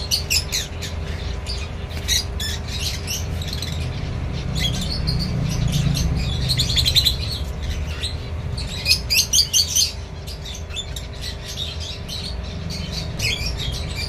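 Two puppies eating soaked, mashed dog food from a steel bowl: rapid wet smacking and lapping clicks of chewing, with a few louder smacks about nine seconds in.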